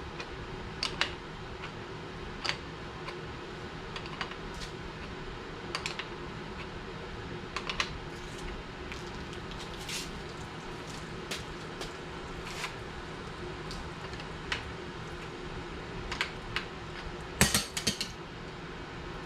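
Scattered clicks and clinks of hard parts being handled as a pressure washer wand is taken apart, with a louder run of several clicks near the end. A faint steady hum sits underneath.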